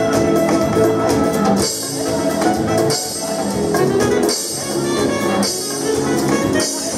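Upbeat brass-led music with drums, as accompaniment for a circus act: held horn notes, with a bright cymbal-like splash about once a second from around two seconds in.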